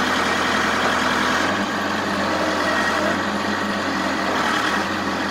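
Heli forklift engine running steadily under throttle, driving the hydraulics of its bale clamp attachment. A thin steady whine comes in about a second and a half in.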